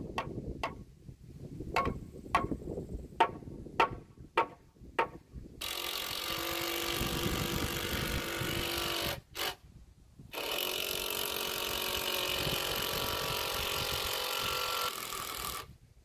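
About ten sharp knocks on a timber beam in the first five seconds, then a power drill running steadily in two long stretches of about three and five seconds, driving a fastener into a 12×12 cm pine/spruce beam.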